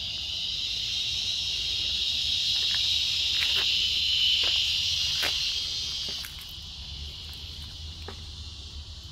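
Insects buzzing: a loud, steady, high-pitched drone that swells, then drops off sharply about six seconds in, with a few faint clicks.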